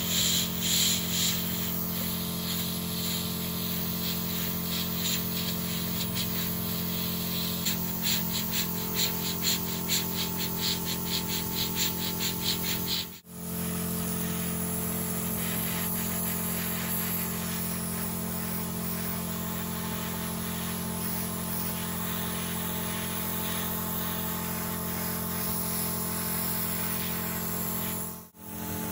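Airbrush and its compressor running with a steady hum and the hiss of white paint spraying onto a plastic model body. Through the middle the spray comes in a run of short, quick pulses, about three a second. The sound drops out briefly twice.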